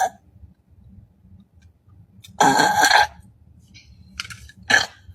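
A young woman burps once, for about two-thirds of a second, about two and a half seconds in; two short, fainter sounds follow near the end.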